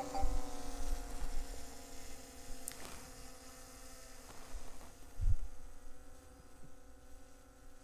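DJI Mini 3 Pro drone's propellers humming steadily as it climbs away, the hum fading as it gains height. A few low thumps cut in, the loudest about five seconds in.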